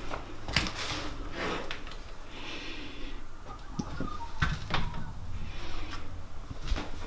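Scattered knocks and clicks as a person moves about and handles a wooden door in a small, empty room, with a short rustle about two and a half seconds in.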